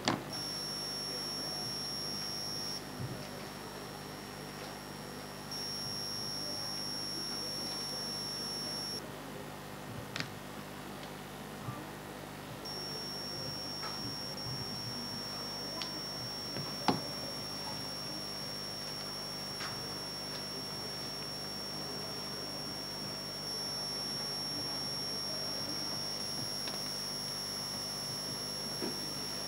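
A steady high-pitched electronic tone over quiet room noise. It cuts in and out, off for a few seconds twice before holding on for the rest. A few faint clicks, and one sharper knock about 17 seconds in.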